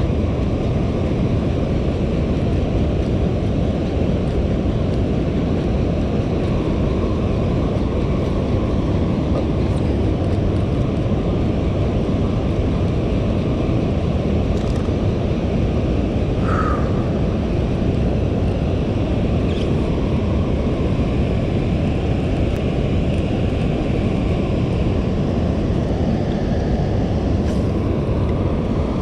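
Steady low rumble and rush of water pouring through open dam spillway gates, an unbroken dense noise that does not change.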